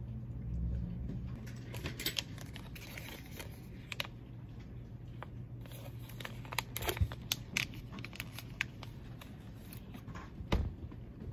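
A small plastic snack packet being torn open and handled, with crinkling rustles and sharp clicks, over a steady low hum.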